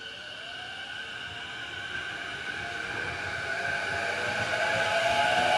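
JR East E233-2000 series electric commuter train pulling away, its inverter-driven traction motors whining in rising pitch. The train's sound grows steadily louder.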